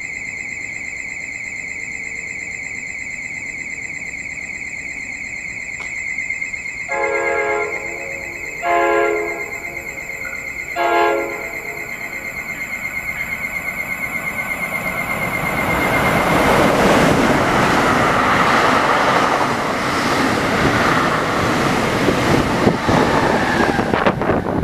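A high, rapidly pulsing electronic warning alarm sounds through the first half and fades out. Partway through it, the approaching NJ Transit cab car gives three horn blasts. Then the bi-level push-pull train, with an electric ALP-46 locomotive pushing at the rear, runs through the station at speed: a rising rush of wheel-on-rail noise that becomes the loudest sound.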